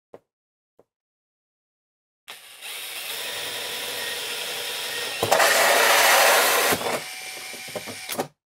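Cordless drill spinning a 2 3/8-inch hole saw into a wooden cabinet panel. The motor starts about two seconds in and runs at a steady whine. It turns much louder and noisier for about a second and a half midway as the saw cuts, then runs on more quietly and stops near the end.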